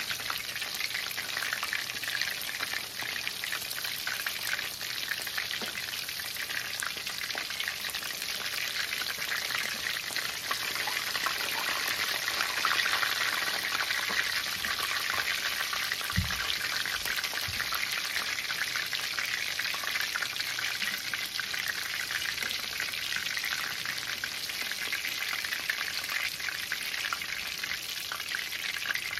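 Battered chicken strips frying in hot oil in a stainless steel skillet: a steady sizzle of bubbling oil, a little louder for a few seconds around the middle, as the pieces are turned and lifted out with tongs.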